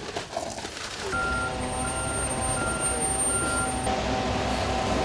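A machine's engine starts running steadily about a second in, with a short beeping alarm sounding four times at even intervals.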